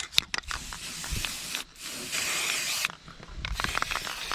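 Aerosol spray-paint can hissing in short bursts, the longest about two seconds in, with a few sharp clicks near the start.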